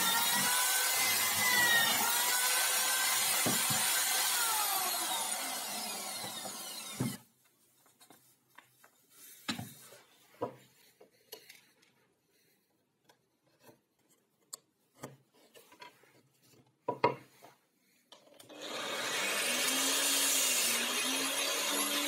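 Electric drill mounted in a homemade drill stand boring into plywood, its motor pitch dipping and recovering under load, stopping about seven seconds in. Scattered light clicks and knocks follow as parts are handled, then an angle grinder fitted with a sanding disc starts and runs near the end.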